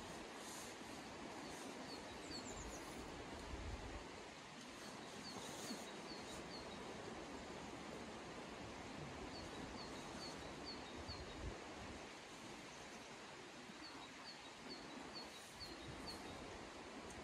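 Steady rush of a flowing river, with a small songbird calling in runs of five or six quick high chirps about every four seconds.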